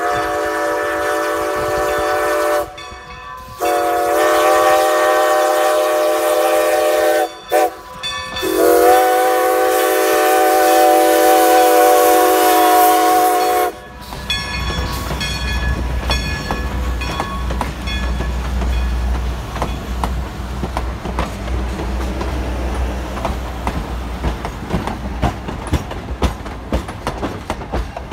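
Strasburg Rail Road No. 90, a 2-10-0 steam locomotive, sounds its steam whistle in the grade-crossing pattern: long, long, short, long. About halfway through the whistle stops and the locomotive and its coaches roll past with a low rumble and steady clicking of wheels over rail joints.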